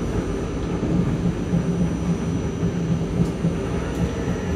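Oslo tram in motion, heard from inside the car: a steady rumble of wheels on rail with a low steady hum, and a couple of faint clicks in the second half.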